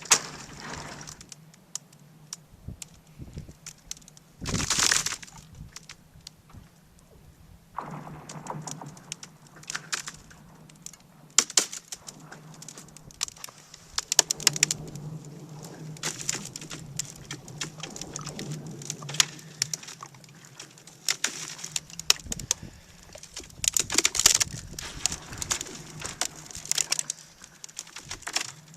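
Thin lake ice cracking and snapping under pressure in many sharp ticks and pops, with a louder crack about five seconds in. Under it runs a low groaning from water moving beneath the ice as it breaks up at ice-out.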